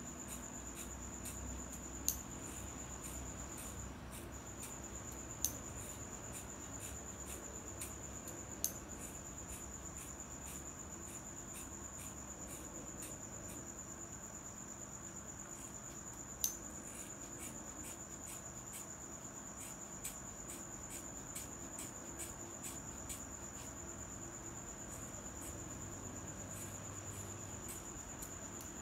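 Sharp snips of scissors cutting through hair every few seconds, with a few smaller snips close together later on, over a steady high-pitched insect trill.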